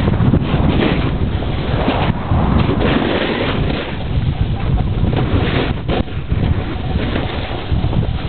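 Wind buffeting the microphone during a downhill snowboard run: a loud, rough, continuous rushing that swells and eases, with a brief dip about six seconds in.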